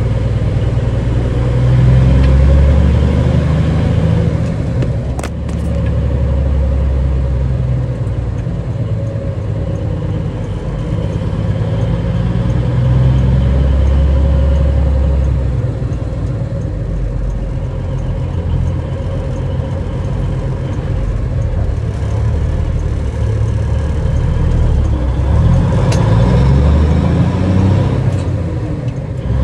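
Diesel engine of a 1979 Kenworth W900A heard from inside the cab while driving. It pulls harder in three stretches and eases off between them. A sharp click comes about five seconds in and another near the end.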